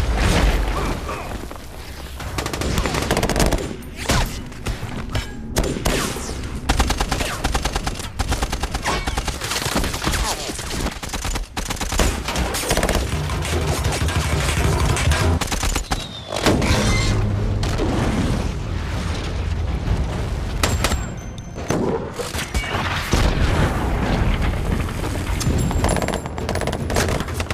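Dense battle gunfire, with rapid automatic bursts and single shots following one another closely, mixed with explosions.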